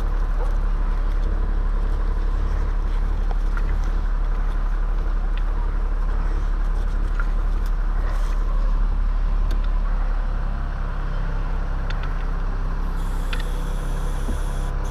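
A motor vehicle engine running steadily with a heavy low rumble. About ten seconds in, the sound shifts to a clearer, steady pitched hum.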